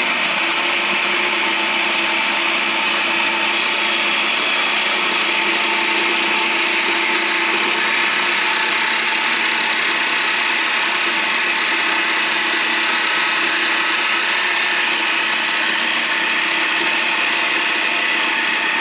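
Bosch jigsaw fitted with an acrylic (PMMA) blade running steadily while it cuts through an acrylic sheet.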